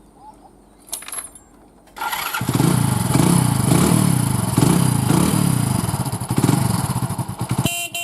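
Passion Pro motorcycle's single-cylinder engine starting about two seconds in, then running loud with its note rising and falling over and over as the throttle is blipped. It drops out briefly near the end.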